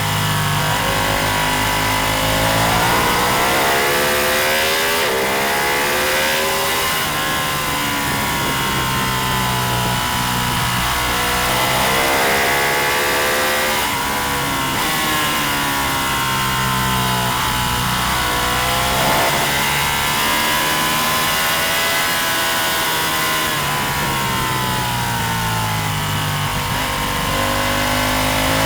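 Road-racing motorcycle engine at racing speed, its pitch climbing and dropping again and again as it accelerates, shifts and slows for corners, over a steady rush of wind.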